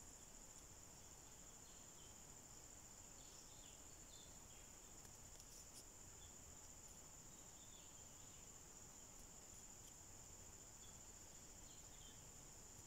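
Near silence: faint background room tone with a steady, high-pitched whine.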